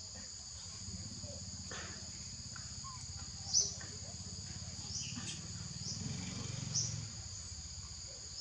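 Insects droning steadily in two high-pitched bands, with short high chirps every second or two over a low steady hum.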